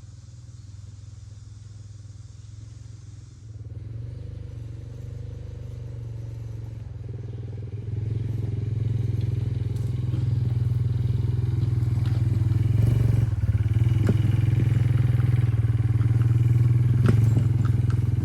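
A small engine running steadily and growing louder over the stretch, with some clatter and scraping in the second half.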